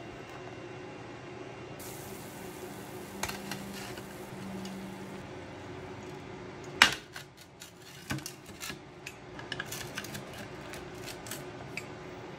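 Metal clatter and crunching cuts on a metal pizza peel as a crispy thin-crust pizza is sliced into squares: one loud metallic clack, then a quick run of sharp crunchy clicks from the cutter breaking through the crisp crust, over a low steady hum.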